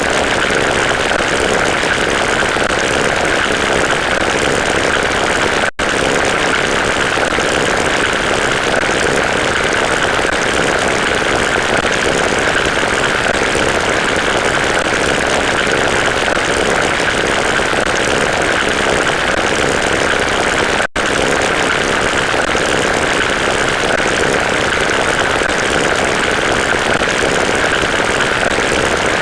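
A loud, steady engine-like drone mixed with a hiss, without rhythm or change in pitch, cutting out for an instant twice.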